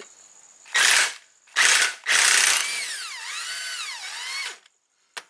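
Earthquake impact wrench hammering on the exhaust VVT phaser bolt of a 2011 Toyota Camry camshaft in three short bursts, then running on for about two seconds with its pitch dipping and rising twice as the trigger is eased.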